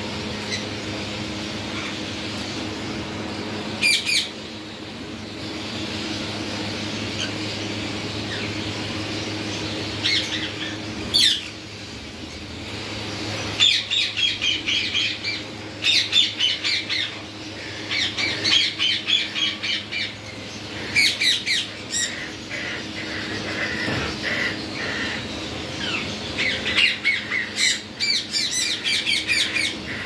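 Indian ringneck parakeets squawking in an aviary: a few sharp single calls, then rapid runs of repeated harsh calls through the second half. A steady hum sits under the first part and stops before the middle.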